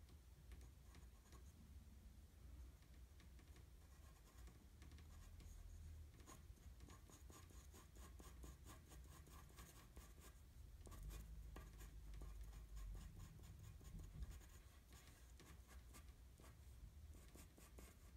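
Faint graphite pencil scratching on drawing paper in many short, quick strokes.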